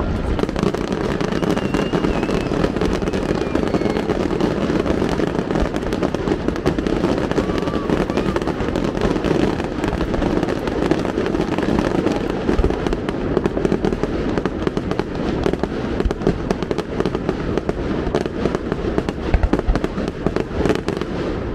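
Large aerial fireworks display going off continuously: a dense crackle of many overlapping bursts, with a few heavier low thuds near the end.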